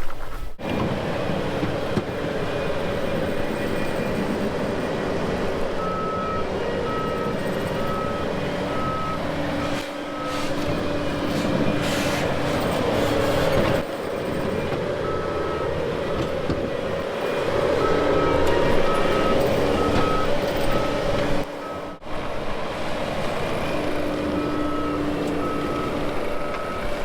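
Heavy equipment's diesel engine running steadily, with a backup alarm beeping in several runs as the machine reverses.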